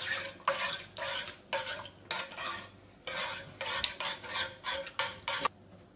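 Spoon stirring and scraping around a stainless steel pan, mixing powdered milk into milk, in quick repeated strokes about two a second.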